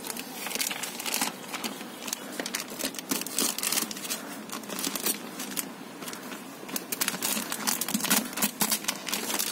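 Hands working on a car door's interior trim during power window mechanism removal: a steady run of irregular small clicks and crinkling.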